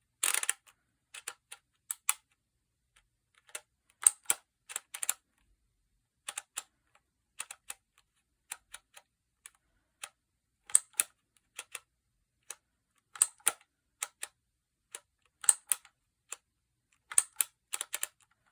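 Phomemo E975 manual embossing label maker clicking as letters are dialled and pressed into the tape one by one: sharp clicks in small clusters of two or three, every second or two.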